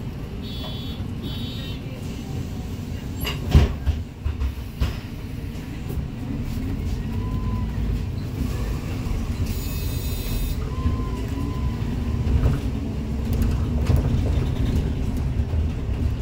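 Bus interior while driving: a steady low engine and road rumble, with a few sharp knocks and rattles about three and a half to five seconds in.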